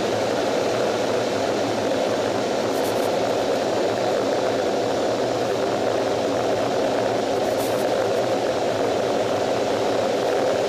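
F/A-18's twin jet engines running steadily on the carrier deck, heard from the cockpit as a loud, even rushing noise.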